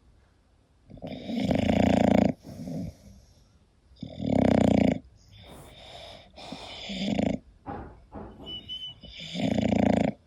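English bulldog snoring in its sleep: three loud snores a few seconds apart, with quieter breaths in between.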